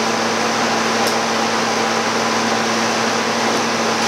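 Brewery chiller running: a steady, loud hiss with a constant low hum under it.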